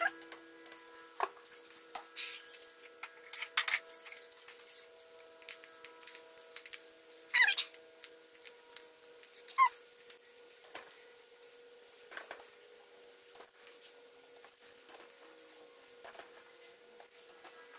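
Hand ratchet and torque wrench clicking and knocking as bolts on an AC compressor housing are run down and torqued, with a few short squeaks.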